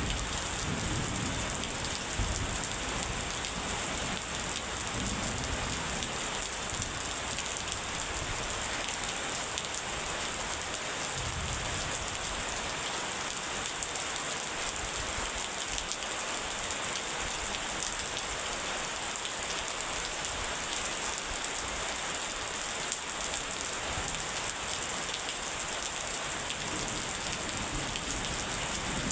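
Steady rain falling, an even hiss, with low thunder rumbling in the first part that dies away about halfway through.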